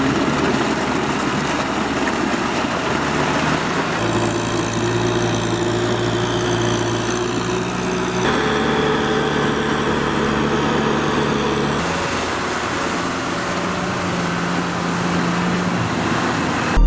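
Kubota M6040SU tractor's diesel engine running steadily under load as it pulls a rotary tiller through deep mud. The engine note changes abruptly about every four seconds where separate shots are joined.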